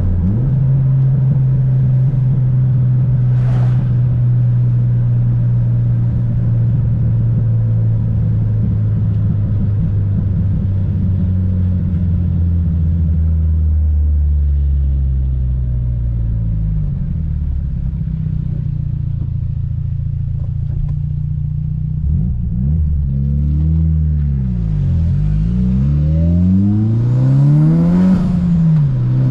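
Tuned 400 hp Mitsubishi Lancer Evolution VIII's turbocharged 4G63 inline-four engine running at a steady low pitch for the first half. In the last several seconds its pitch sweeps up and down repeatedly as it revs.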